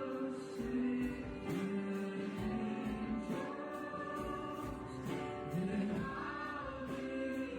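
Congregation singing a worship hymn with instrumental accompaniment, long held notes that change pitch every second or so.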